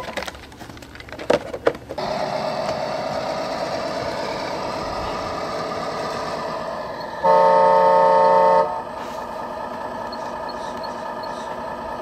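An engine sound kit in a Kyosho Blizzard SR radio-controlled snowcat, playing a simulated engine through its speaker. The engine starts about two seconds in and then idles steadily, with a horn blast of about a second and a half a little past the middle. Before the engine starts there are a few sharp clicks as hands handle the model's plastic body.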